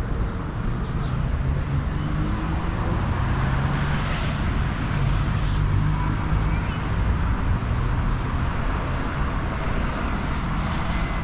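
Steady city street traffic: passing cars and the low drone of engines.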